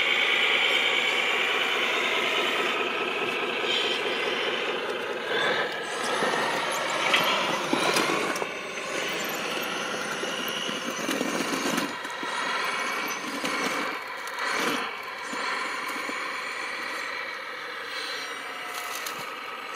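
Radio-controlled scale construction models, a Liebherr tracked excavator and a Pegaso dump truck, working with a steady whine of electric motors and gears. The high whine is strongest for the first few seconds. Several short scrapes and knocks come through, mostly in the middle.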